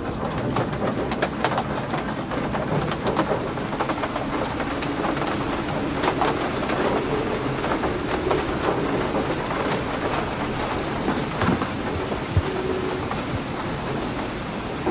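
Steady rain falling, with many small drop impacts close by and a low rumble beneath.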